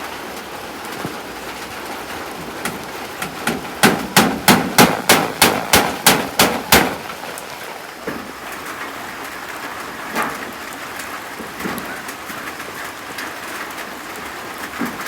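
Steady rain, with a quick run of about a dozen hammer blows, about four a second, starting about four seconds in and lasting some three seconds, as the hut's roof is nailed on. A few fainter single knocks come later.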